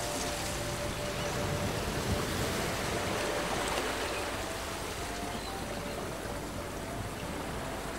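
Steady rush of flowing water, with a faint slow melody of held notes underneath.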